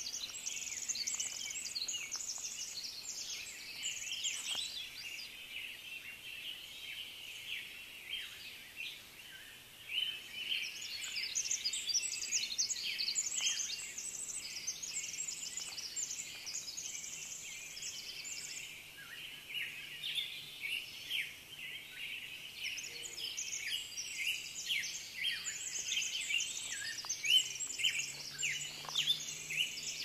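Dawn chorus: many songbirds singing at once, a dense, really loud mass of overlapping high chirps, whistles and trills. It thins briefly about a quarter of the way in, then swells again.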